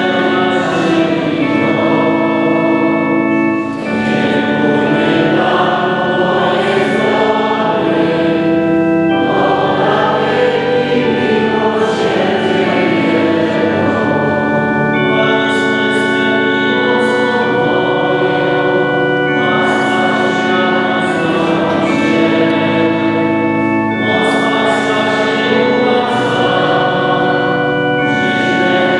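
A church hymn sung by many voices together, over steady held chords that change every few seconds.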